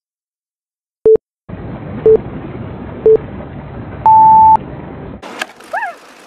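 Countdown-timer beeps: three short electronic beeps about a second apart, then a longer, higher beep as the countdown ends. Under them is a steady rushing of wind and sea water. Near the end a sharp click is followed by a short rising-and-falling tone.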